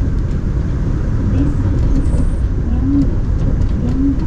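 Daegu Metro Line 3 straddle-type rubber-tyred monorail train running, heard from inside the car: a steady low rumble of the running gear and tyres on the guideway.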